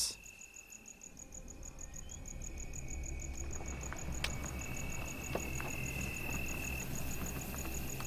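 Night insects, crickets, calling: a high chirp pulsing evenly about six times a second over a steady shrill trill that swells for a while past the middle. A low rumble rises underneath over the first few seconds.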